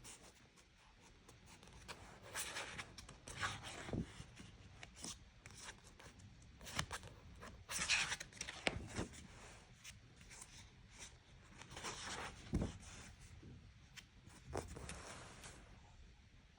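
Handling noises: irregular rustling and rubbing, with a few soft knocks.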